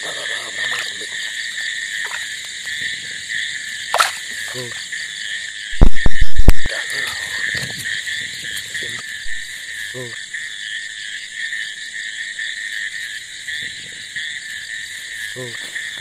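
Night chorus of frogs and crickets over flooded grassland after rain, a steady high trilling, with a few closer frog croaks. About six seconds in, a short burst of very loud knocks cuts through it.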